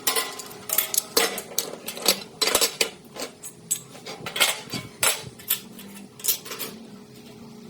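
Hard objects clinking and clattering against each other as they are handled: a quick, irregular run of sharp knocks that stops shortly before the end.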